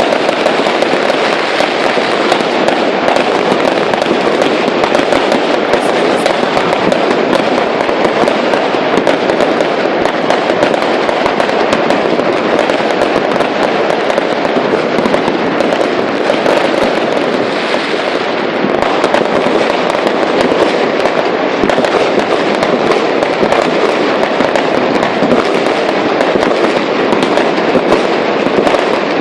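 Fireworks going off in a dense, continuous barrage: countless rapid pops and cracks merging into one unbroken crackle that holds steady throughout.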